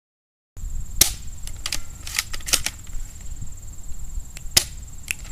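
A CO2 airsoft pistol firing several sharp pops at irregular spacing, over a steady high insect drone. The first half second is silent.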